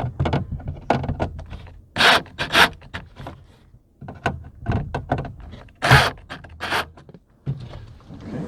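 Hands working a plastic rear-sunshade latch and its fittings into place: a string of irregular clicks, knocks and short scrapes, with a few louder rasps about two seconds and six seconds in.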